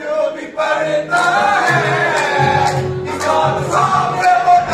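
A group of young men singing a qawwali together, with sharp hand claps in a steady beat about twice a second.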